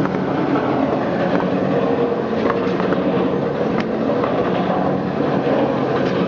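Drum-type snack flavoring machine running: a steady motor and drive hum, with the stainless-steel drum turning and the snack sticks tumbling inside it, clattering against the drum wall in scattered light clicks.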